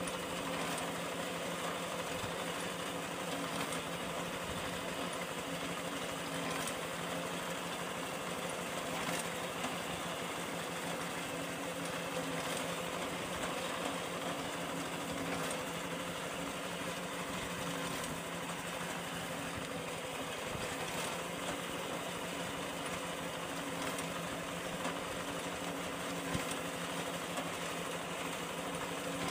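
Small engine of a wheat reaper running steadily as the machine cuts standing wheat: an even engine hum with a few light clicks.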